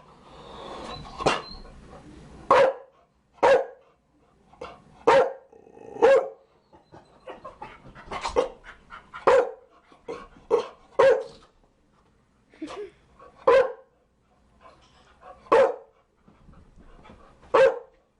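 Chow Chow dog barking: about a dozen single deep barks at an uneven pace of roughly one a second, with brief pauses between them.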